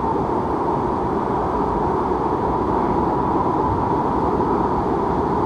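Steady rushing of water around a raft tube gliding through a water slide's runout pool, with low rumbling that does not let up.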